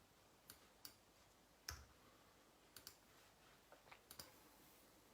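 About eight faint, sharp clicks at irregular intervals, from someone working a computer's mouse and keys, over a quiet room.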